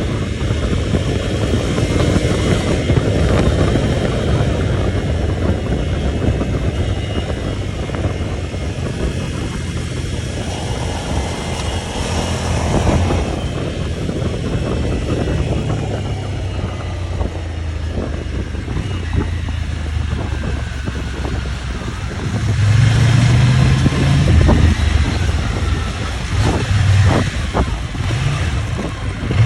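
Vehicle engine running under way, with steady rolling and rumbling noise throughout. The engine gets louder and rises in pitch for a few seconds about three-quarters of the way through.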